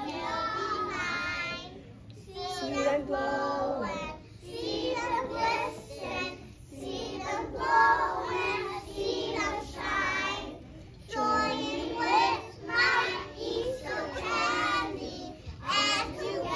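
A group of young children singing a song together, phrase by phrase with short breaks between the lines.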